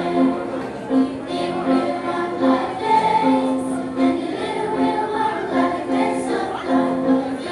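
Children's school choir singing with electric keyboard accompaniment, amplified through a PA, to a steady beat.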